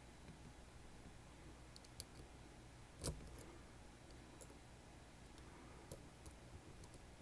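Faint, scattered metallic clicks of small tools working a Sargent Keso lock, with one louder click about three seconds in.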